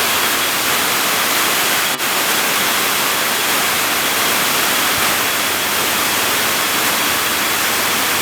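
Steady rushing of river water, an even hiss with no engine note standing out, briefly broken by a click about two seconds in.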